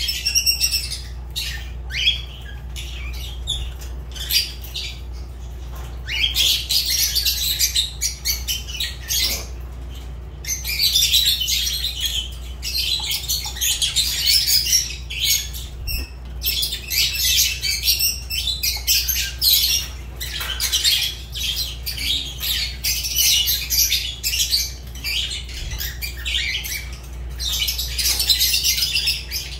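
Fischer's lovebirds chattering and squawking: dense, high-pitched chirps coming in busy bursts with short lulls between them.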